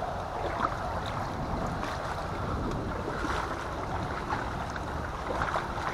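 River water washing steadily against a kayak hull, with a few small splashes and wind buffeting the camera microphone.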